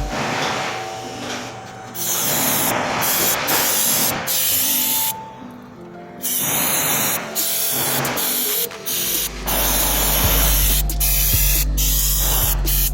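Loud hissing noise in stretches of one to three seconds, with short breaks, over background music; a steady bass line comes in about nine seconds in.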